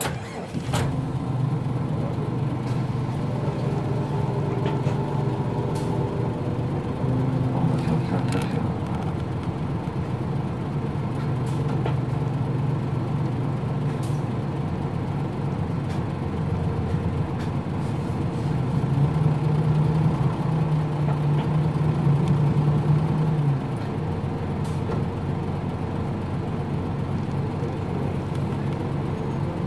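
Nissan Diesel KL-UA452MAN city bus's diesel engine running with a steady hum. The pitch rises from about 19 seconds in and drops sharply about four seconds later. A few sharp clicks come in the first half.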